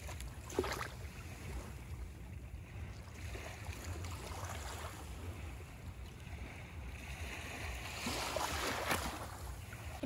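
Small sea waves washing up onto the shore, swelling a little louder near the end, with wind rumbling on the microphone.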